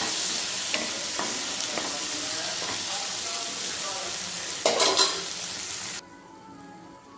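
Chopped raw green tomatoes and onion sizzling in hot oil in a non-stick kadai, stirred with a wooden spatula, with a few light taps and a louder burst of stirring about five seconds in. The sizzle cuts off abruptly about six seconds in, leaving soft background music.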